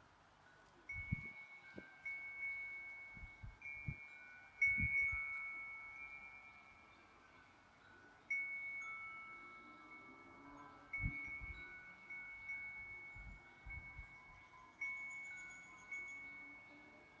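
Wind chime struck irregularly by the wind, about a dozen times. Several high, clear notes ring on and fade slowly, overlapping one another.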